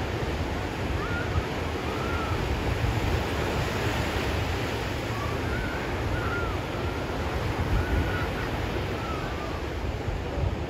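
Ocean surf breaking and washing on a sandy beach, with wind buffeting the microphone. A few faint short calls are heard now and then over the surf.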